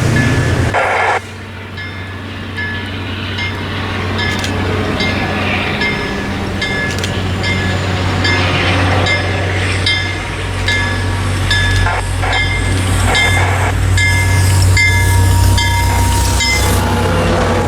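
Train standing or moving slowly with its engine droning low and steady, while a railway bell rings in an even rhythm, a little under two strikes a second.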